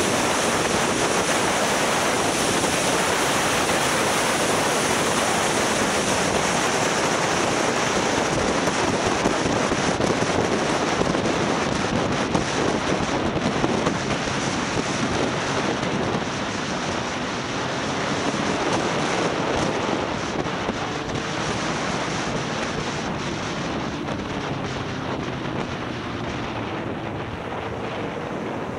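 Wind rushing over the microphone of a motorcycle at riding speed. The engine is faintly heard beneath it, its pitch shifting in the second half, and the wind eases a little near the end.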